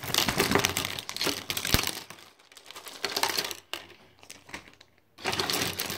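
Clear plastic packaging crinkling as a bag of paintbrushes is pulled open and shaken out, with the brushes' handles clicking and clattering onto a tabletop. The crinkling is densest in the first two seconds, followed by shorter bursts of rattling.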